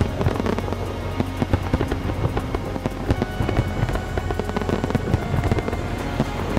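Fireworks exploding in many quick, irregular bangs over a deep rumble, with music playing along.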